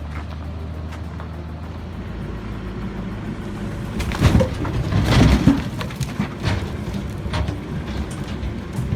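Volvo FMX 6x6 logging truck's diesel engine running steadily. A burst of loud knocking and crashing comes about four to five and a half seconds in.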